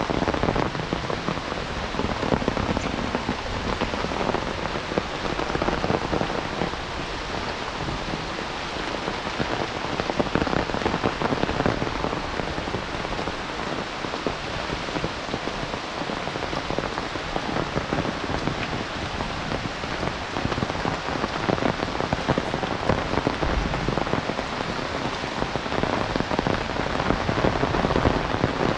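Heavy rain falling steadily, a dense patter of countless drops.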